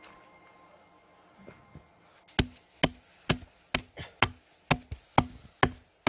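Hatchet chopping into a rotten tree stump, starting a little over two seconds in and striking steadily about twice a second.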